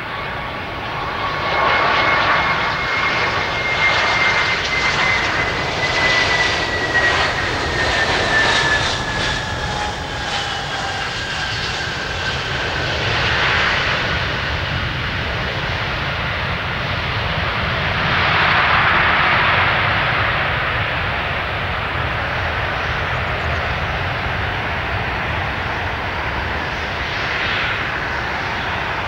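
Airbus A320 jet landing. Its engine whine falls slowly in pitch as it passes, a burst of noise comes around touchdown about halfway through, and the engine noise swells loudly again during the rollout before settling to a steady rush.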